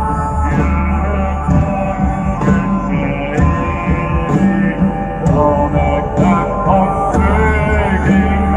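Live medieval-style rock band on a concert stage: sustained bagpipe melody over a steady drum beat of about one stroke a second, recorded loud from within the crowd.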